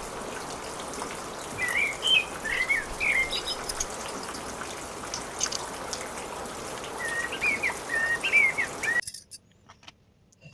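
A bird chirping in two runs of quick, bending notes, about two seconds in and again near the end, over a steady hiss. All the sound cuts off suddenly about nine seconds in.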